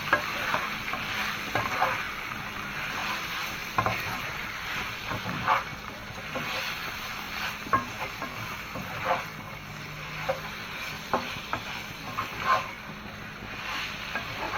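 Skinned frog pieces frying in hot oil, sizzling steadily, while a spatula stirs them, scraping and knocking against the pan about once a second.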